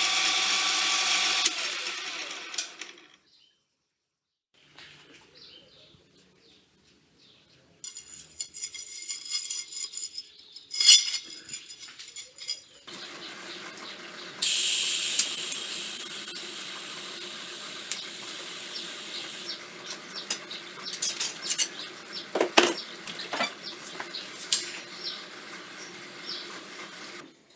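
Metalworking in a workshop: a power tool runs and winds down, then metal parts rattle and clink as they are handled, with a loud high hiss for about five seconds in the middle and scattered knocks and clicks.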